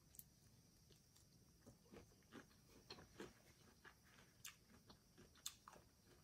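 Faint chewing of cold cooked shrimp: a scattering of soft, wet mouth clicks.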